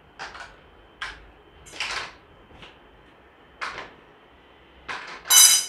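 Blue hard-plastic fittings of a clothes-drying stand being lifted out of a cardboard box and set down on the floor: a string of short clacks and rustles, the loudest a bright clatter near the end.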